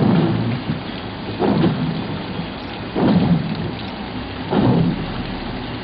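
Heavy downpour of rain on a flooded street, a steady hiss with a louder low surge about every second and a half.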